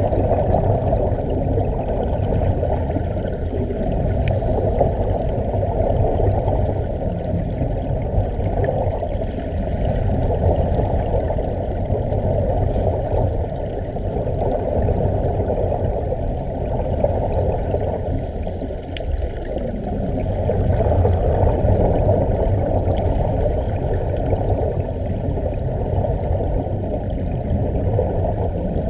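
Air bubbling out of surface-supplied diving helmets, heard underwater as a muffled, steady bubbling wash with a low rumble. It rises and falls slowly in loudness every few seconds.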